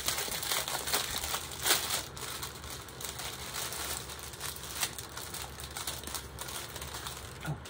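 Plastic packaging crinkling and rustling as it is handled, with irregular small crackles and one louder crackle about two seconds in.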